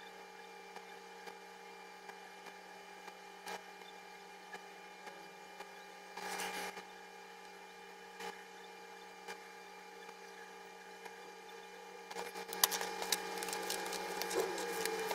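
Faint handling sounds of a pen and notebook at a desk over a steady, multi-pitched hum: scattered light taps and a brief scratch about halfway, then a run of rustling and clicks near the end as the notebook is picked up and moved.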